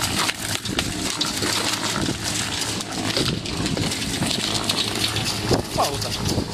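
Electric concrete mixer running, with a steady motor hum under continuous rattling from the turning drum.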